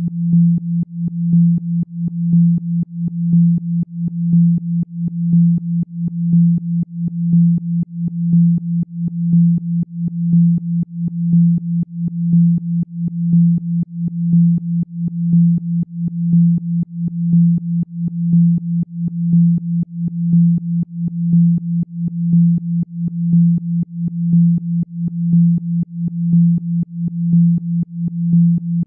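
Synthesized low tone a little under 200 Hz, pulsing evenly in loudness: a Rife-style healing frequency, here billed as one for spine regeneration and meant for headphone listening.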